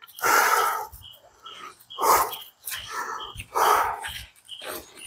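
A dog barking: four barks, about a second and a half apart.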